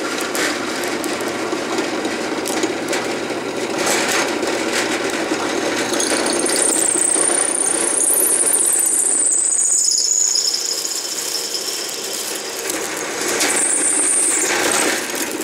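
Drill press motor running steadily while its bit bores into a ferrocerium (ferro) rod. The bit squeals high as it cuts, from about six seconds in until ten seconds, dropping in pitch at the end, and again briefly near the end.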